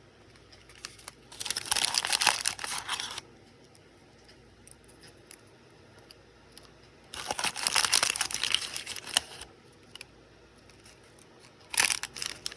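Small packaging crinkling as it is handled and opened: two long bursts of crinkling, then a short one near the end.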